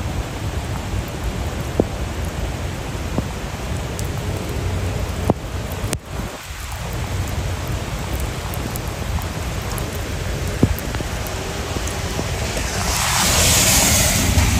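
Heavy rain pouring down: a steady rush of water with scattered sharp drop hits, swelling louder for a couple of seconds near the end.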